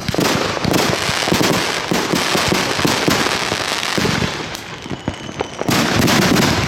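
Consumer fireworks going off in a dense run of crackling and popping. The crackle eases off about four seconds in, then a louder burst of crackling comes near the end.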